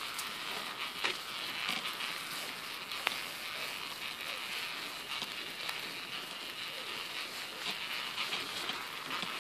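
Odder pram's wheels rolling along a path: a steady rolling hiss with scattered small clicks and rattles, one sharper click about three seconds in.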